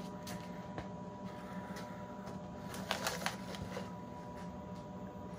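Light clicks and rustles of a plastic model car body and its cardboard box insert being handled, with a short cluster of sharper clicks about three seconds in, over a steady background hum.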